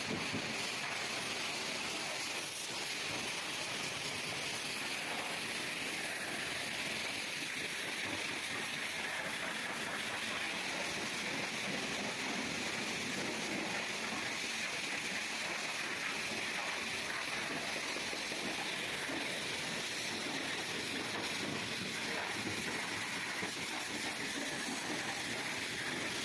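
Pressure-washer water jet spraying onto a car's body: a steady hiss.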